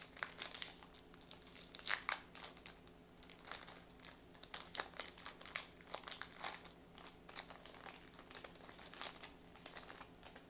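Foil booster-pack wrappers of Yu-Gi-Oh! trading cards crinkling and tearing as the packs are handled and ripped open, a dense run of irregular crackles that cuts off suddenly at the very end.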